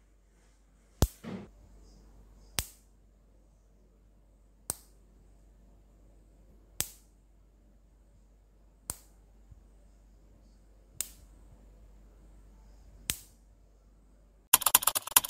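Sharp high-voltage spark snaps from a DIY electric fence energizer's flyback transformer output arcing across a gap, one crack about every two seconds, seven in all, over a faint hum. Near the end, a loud burst of rapid clicking.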